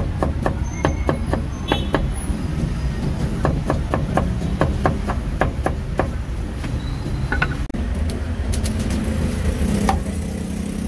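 Steel cleaver chopping cucumber on a thick wooden chopping block: quick sharp knocks of the blade against the wood in runs of about three to four a second. A steady low rumble of street traffic runs underneath.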